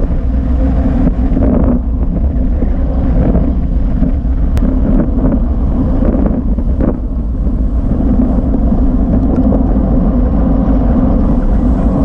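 Steady wind rush buffeting an action camera's microphone on a moving road bike, mixed with low tyre and road rumble, with a few brief knocks from bumps in the road.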